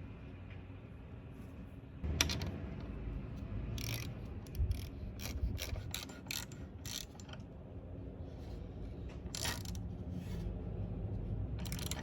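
Ratchet wrench clicking in short, irregular runs as a small nut is turned down onto a new rear-glass hinge. The clicks start about two seconds in.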